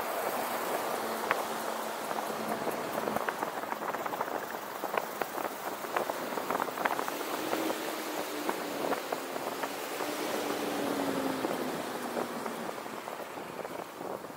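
Street driving noise from a moving car: a steady hiss scattered with many small ticks and crackles, with a faint engine hum that rises and falls in the middle.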